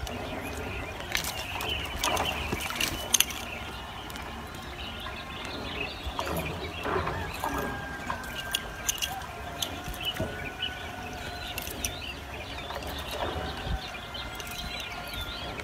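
Outdoor ambience over a low steady rumble, with birds calling and scattered light clicks and rustles as the nylon cast net and its sinkers pay out through a hand.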